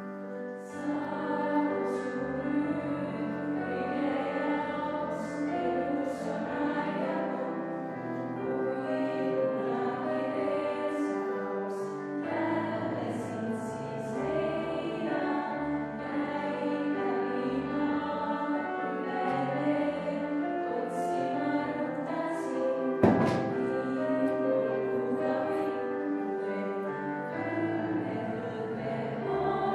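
A choir of young female voices singing a song in harmony, with piano accompaniment. A single sharp knock sounds about two-thirds of the way through.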